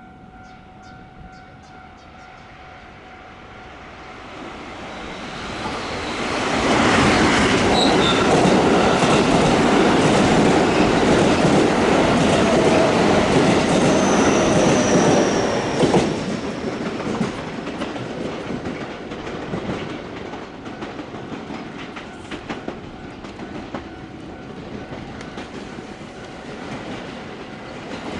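Electric train passing over a level crossing, its wheels clacking over the rail joints. It swells over a few seconds, is loudest for about ten seconds, then drops to a quieter, rhythmic clatter as it draws away. A level-crossing warning bell rings faintly at the start.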